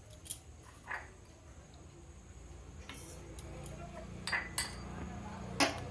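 A spoon and kitchen containers clinking lightly, half a dozen short separate clinks, while whole spices are added for a masala paste. A faint low hum runs underneath.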